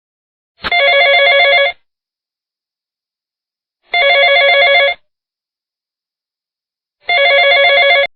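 A telephone ringing for an incoming call: three electronic trilling rings, each about a second long, about three seconds apart.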